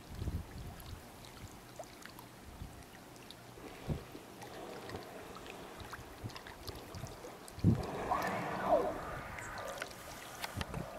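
Water lapping and trickling against a kayak hull, with occasional low knocks. About eight seconds in, a louder thump is followed by a brief wavering, pitched sound.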